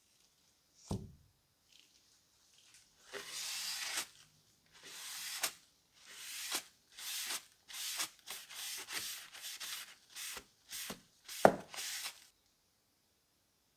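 Folded paper towel wiping a freshly blackened steel cleaver blade dry after its ferric chloride and coffee dip: a run of rubbing strokes, long at first, then shorter and quicker. There is a soft knock about a second in and a sharper, louder knock near the end.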